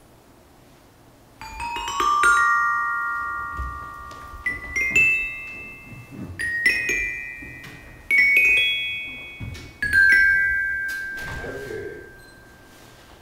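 Metallophone struck in short clusters of bright notes, about five phrases a second or two apart, each left to ring on for several seconds. It starts about a second and a half in, and the last notes die away near the end.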